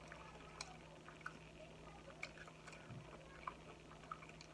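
Faint close-up chewing with the mouth closed: soft, irregular wet clicks and smacks, over a low steady hum.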